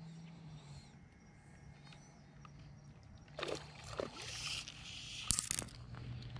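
Water splashing at the surface as a bass strikes a topwater gurgler fly, starting about three and a half seconds in and lasting a couple of seconds, with a sharp click near the end.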